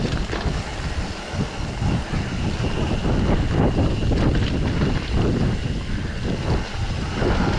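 Mountain bike riding fast down a dirt forest singletrack: wind buffeting the microphone over the rumble of knobby tyres on dirt, with frequent jolts and rattles as the bike hits bumps.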